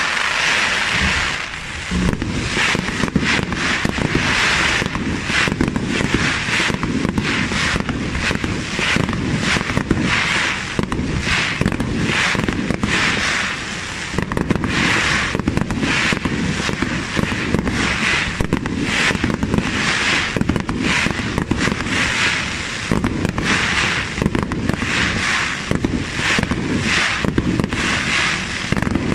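Aerial fireworks in a dense, continuous barrage: shells launching and bursting one after another, with many rapid bangs and crackles.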